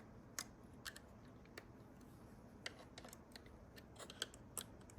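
Faint, irregular small plastic clicks and ticks as the headlight switch's retaining tabs are pried loose with a tool.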